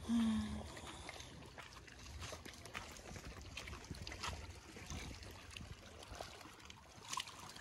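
Small lake waves lapping and trickling among shoreline rocks, with scattered soft clicks and wind rumbling on the microphone. A short low hum opens it, the loudest moment.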